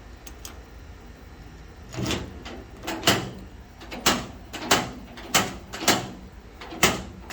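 Newly fitted replacement door lock and latch on a 1978 Chevrolet Scottsdale pickup being worked, a series of sharp metallic clunks starting about two seconds in, roughly one every half second to second. The lock is working properly.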